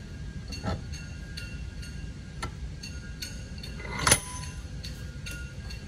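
Small metallic clicks and clinks of hand tools and stainless tube-fitting parts being handled at a bench vise, with one sharp, ringing metal clink about four seconds in. A low steady background rumble runs underneath.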